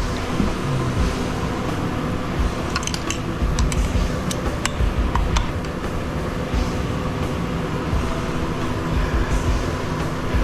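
A steady background hum, with a few light metallic clicks from the parts of a dismantled electric motor being handled on the bench.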